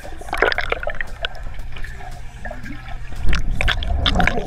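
Muffled pool water churning, with scattered clicks and pops, heard through a camera held underwater in a swimming pool; it grows louder about three seconds in.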